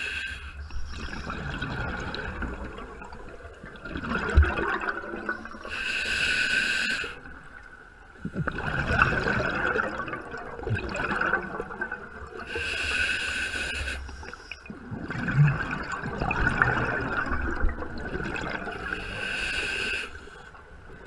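Scuba diver breathing through an open-circuit regulator underwater: three breaths, each a short hissing inhale followed by several seconds of gurgling exhaled bubbles.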